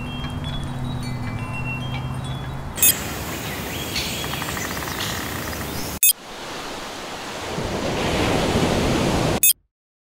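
Edited commercial soundtrack: high chime tones over a steady low hum, cut off sharply about three seconds in by a hissing, noisy passage. After a second sharp cut comes a rising rush of noise that stops dead about nine and a half seconds in.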